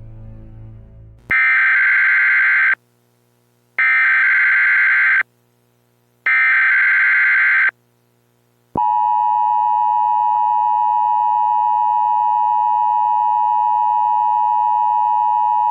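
Emergency Alert System tones: three short harsh buzzy data bursts of the SAME header, each about a second and a half long with gaps between, then about nine seconds in the steady two-tone attention signal begins and holds.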